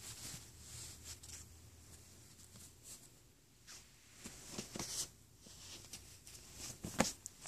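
Soft cloth rustling and scratching as a cat paws and bites at a bandana on a bedspread, with a few sharp taps, the loudest near the end.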